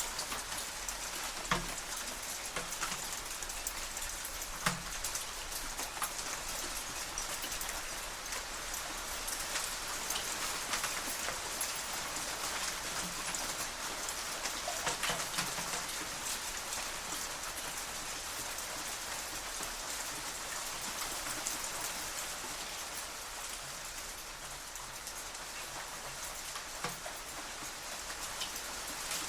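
Hailstones striking metal shutters: a dense, steady rattle of countless small hits, with a few louder single strikes standing out now and then.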